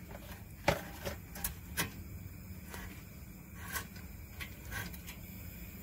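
Scattered light metallic clicks and taps, about ten spread unevenly over several seconds, from a spanner and hand working the clutch cable's nut and end fitting on a two-stroke three-wheeler engine, over a low steady hum.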